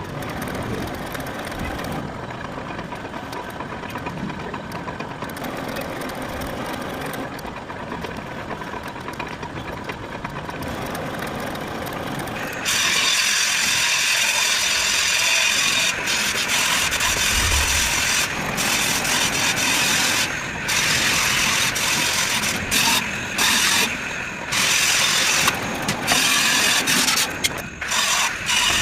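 Metal lathe running, with the cutting tool working a steel bar during thread cutting. About halfway in, the sound jumps to a louder, hissing high-pitched cut. Near the end it stops and starts abruptly several times.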